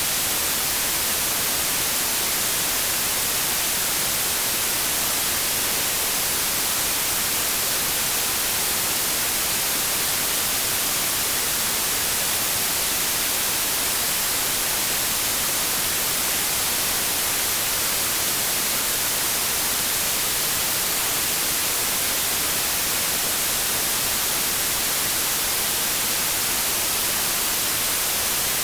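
TV static hiss, the white noise of a television tuned to a channel that is off the air, steady and unbroken.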